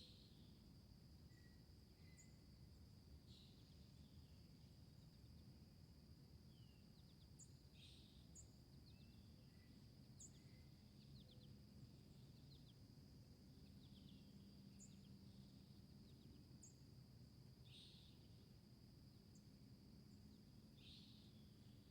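Faint garden ambience: insects keep up a steady high-pitched trill while birds give short chirps every second or two, with a handful of louder calls.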